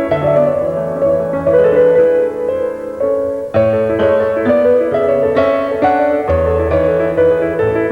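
Piano music: a melody of struck notes, each fading after it is played, over held low bass notes.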